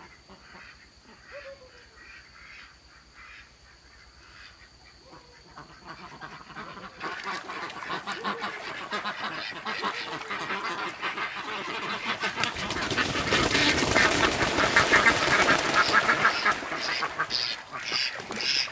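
A flock of domestic ducks quacking, faint and scattered at first, then a dense, louder chorus from about seven seconds in. Water splashing joins in over the second half.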